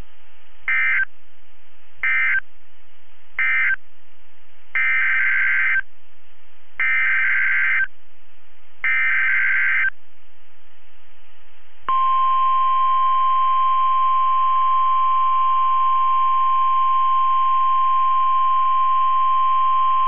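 NOAA Weather Radio EAS/SAME alert data: three short bursts of warbling digital tones, the end-of-message code, then three longer bursts of about a second each, the header of a new alert. About twelve seconds in, the steady single-pitch 1050 Hz warning alarm tone begins and holds, marking a warning-level alert.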